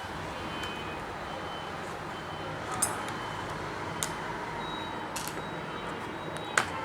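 A few short sharp clicks and taps of laptop parts and tools being handled during disassembly, over a steady background hum.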